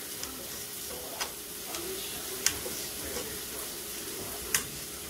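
Knife dicing bell pepper on a plastic cutting mat, with three sharp taps of the blade on the mat a second or two apart, over a steady sizzling hiss from a pan frying on the stove.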